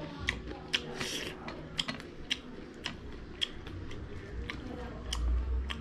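A person eating close to the microphone: chewing with irregular sharp mouth clicks and smacks, and a low rumble near the end.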